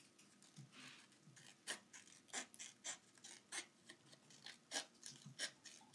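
Small scissors snipping through a paper strip of printed word labels being cut out by hand: a run of short, quiet snips, roughly one every half second to second.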